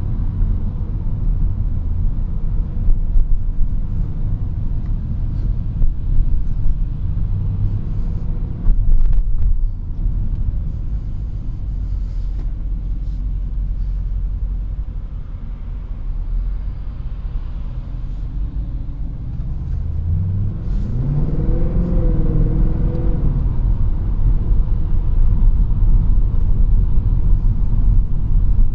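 Mercedes-Benz C63 AMG (W204) 6.2-litre V8 running at low speed in traffic, heard from inside the cabin as a steady low drone. About two-thirds of the way through, the engine note rises under light throttle, holds briefly and falls back, and the engine grows a little louder toward the end.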